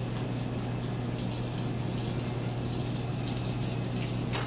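Steady commercial-kitchen background noise: an even hiss over a constant low hum, with one light click near the end.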